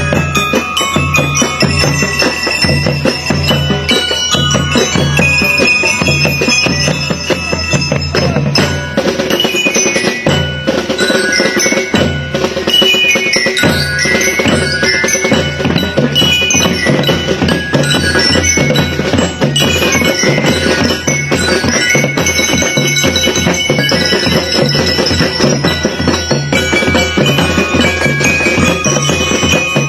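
Background music with bell-like mallet percussion over a pulsing bass beat; the beat drops out for a couple of seconds about ten seconds in.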